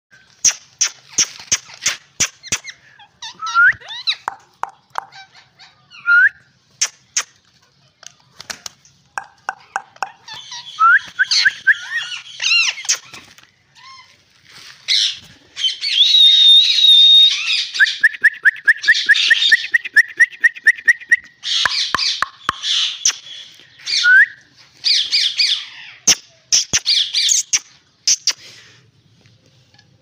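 Rose-ringed parakeets (Indian ringnecks) calling: repeated harsh, high screeches and chattering with sharp clicks, broken by a few short rising whistles. The calls come thickest in the middle, where one call is held for a few seconds.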